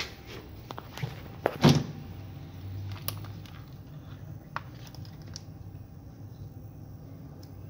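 Handling clicks and knocks as a wire is fitted to a battery terminal clamp, the loudest knock about a second and a half in, followed by a few light ticks over a low steady hum.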